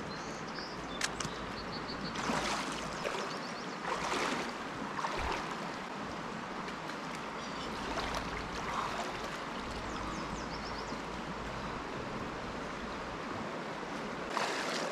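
Steady rush of a shallow river flowing over its bed, with splashes about two and four seconds in and again near the end as a person wades in and dunks himself in the water.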